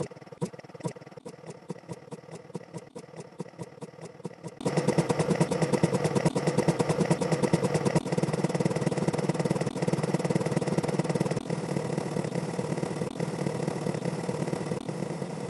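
CapCut explosion sound effect played over and over: separate hits about two to three a second at first. About four and a half seconds in, it jumps louder and the repeats come so fast that they blur into one dense, continuous din.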